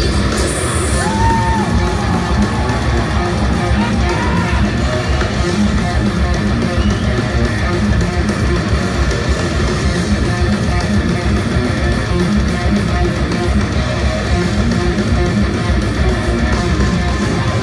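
Live heavy metal band playing loud: electric guitars strumming over bass and a steady drum beat, heard from within the audience of a concert hall.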